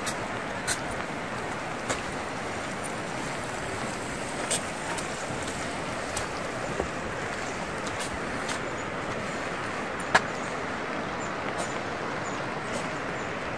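Steady rushing outdoor ambience with a few sharp clicks scattered through it, the loudest about ten seconds in.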